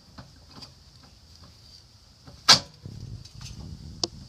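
Metal parts of a wheel hub assembly knocking as they are handled into position: one loud clunk about halfway through, then scraping handling noise and a short sharp click near the end.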